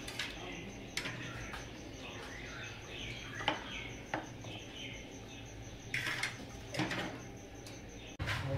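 Irregular metal clinks and knocks, about half a dozen, of a ladle and a steel tray against a large steel cooking pot.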